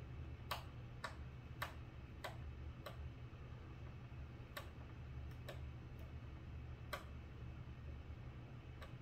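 About a dozen short, sharp clicks at uneven intervals, busiest in the first three seconds, as small screws are turned by hand into a model airplane wing, cutting their threads in the wood. A steady low hum runs underneath.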